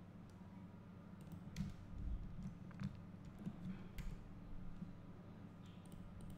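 A handful of faint, scattered clicks of a computer keyboard and mouse being used, over a low steady hum.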